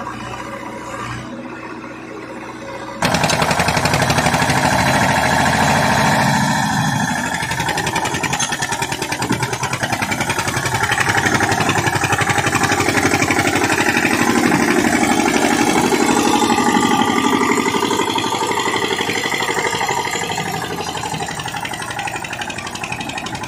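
Eicher 241 tractor's single-cylinder diesel engine. About three seconds in it jumps from a low idle to hard, rapid firing as it hauls a trailer loaded with soil. It stays loud under the load, then slowly fades toward the end as the tractor moves off.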